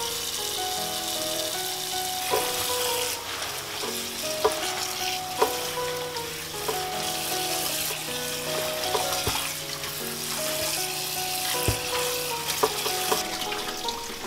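Tap water running in a steady stream onto cut napa cabbage in a stainless steel bowl as hands rub and wash the leaves, with a few short knocks against the bowl. Light background music plays over it.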